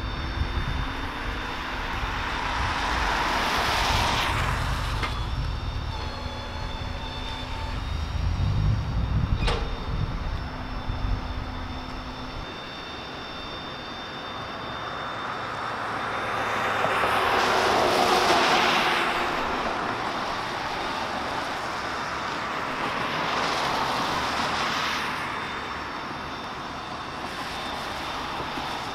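Cars passing on a wet road, their tyre hiss swelling and fading several times. A low engine rumble runs under the first part and stops about twelve seconds in, with one sharp knock shortly before.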